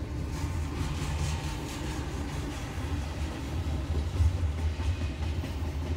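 BNSF freight train of double-stack container cars rolling past a grade crossing, heard from inside a car: a steady low rumble with faint clicks from the wheels.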